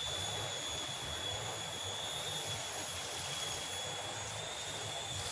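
Steady outdoor background noise: a low, unsteady rumble with a constant thin high-pitched drone above it.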